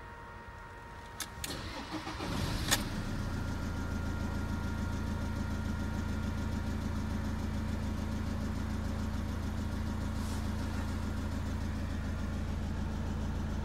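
Citroen Jumper's HDi diesel engine cranking and catching about two seconds in, after a few clicks, then idling steadily.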